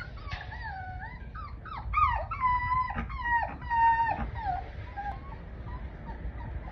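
A litter of 39-day-old puppies whining and whimpering together, several high, sliding cries overlapping for the first four seconds or so, then dying down to a few short whimpers. A low rumble runs underneath.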